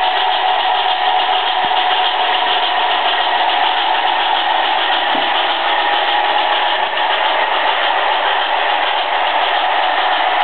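HO-scale model train, a metal GS-4 steam locomotive and PA-1 diesel doubleheading a line of passenger cars, running steadily on its track. Its motors give a steady whine over the even rumble of the wheels on the rails.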